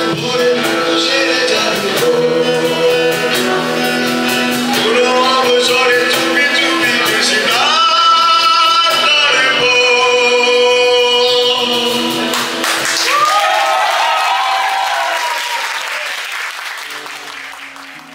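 Live acoustic performance: a man singing into a microphone with long held notes over two strummed acoustic guitars. The song fades out near the end.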